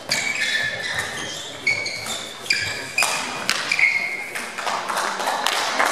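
Badminton doubles rally: a string of sharp racket hits on the shuttlecock, mixed with short high squeaks of shoes on the sports-hall floor.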